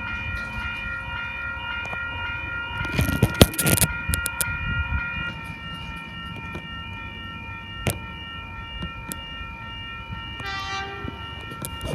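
Eight-car Sydney Trains Oscar electric train pulling into the platform: a steady whine of several tones throughout, with a burst of clattering and rumbling about three seconds in. A short tone sounds near the end.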